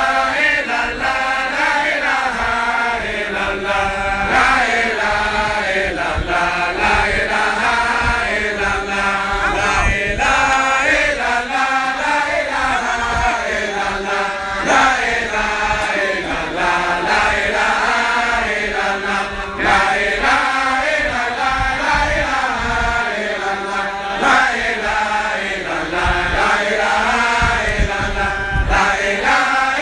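Group of men chanting in unison, a steady melodic devotional recitation of names of God and of the Prophet Muhammad.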